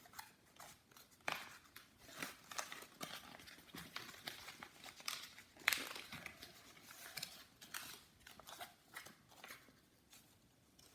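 Sheet of printer paper being folded and creased by hand: a run of faint, irregular crinkles and rustles, the sharpest a little over halfway through.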